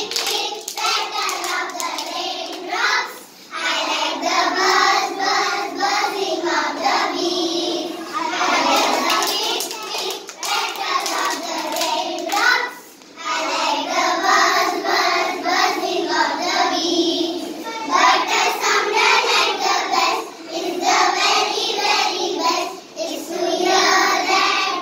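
A group of young children singing a song together in unison, in phrases with short breaks between them, with hand claps mixed in.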